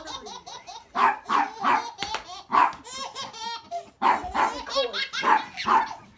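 A small dog barking again and again in short barks, with a baby laughing between and over them.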